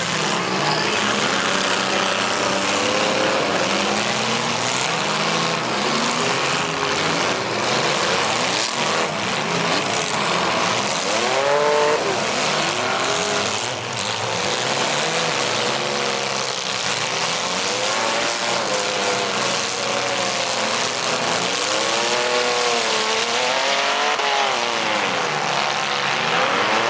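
Demolition derby cars' engines revving hard, several at once, their pitch rising and falling over and over as the cars drive and ram one another in the mud.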